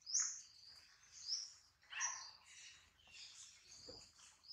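High-pitched animal calls: a string of short sweeping chirps or squeals, about one a second.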